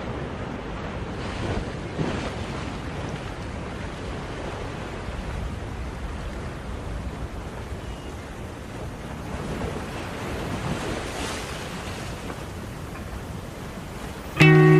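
Ocean surf washing in slow swells, the recorded sea sound that opens the song. A plucked guitar comes in right at the end.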